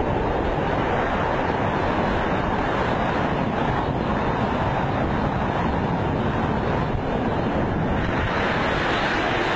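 Steady, loud wind noise battering the microphone during high-speed flight, an unbroken rush with no engine or motor tone in it.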